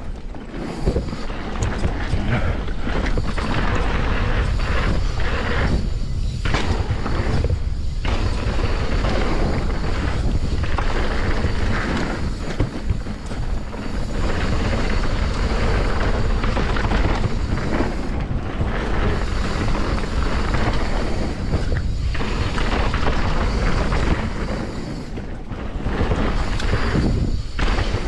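Wind buffeting a chest-mounted action camera's microphone, mixed with mountain-bike tyres rolling over a dirt trail, as the bike descends at speed. The noise drops briefly several times and then picks up again.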